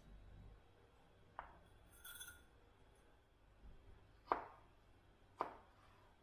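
Kitchenware knocked sharply three times, each knock ringing briefly like glass or crockery. The second and third knocks are the loudest. A short high rattle comes between the first two.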